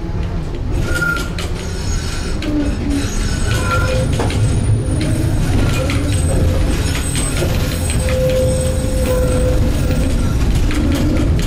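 Tram running along the line, heard from inside the passenger car: a steady low rumble of wheels on rails, with clicks and rattles and short high squeals from the wheels now and then.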